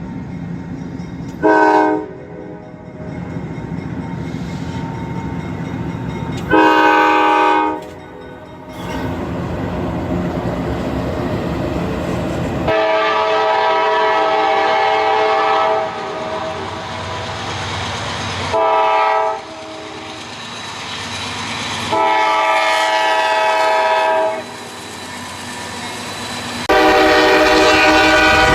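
Nathan Airchime K5LA five-chime locomotive horns sounding about six blasts as trains pass. There are short blasts about two and seven seconds in and near twenty seconds, and long blasts in between and at the end, over the low rumble of the trains.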